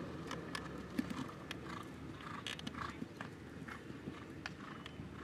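Hoofbeats of a pony cantering on a sand arena, short knocks two or three a second, with a louder thud about a second in as it lands from a jump.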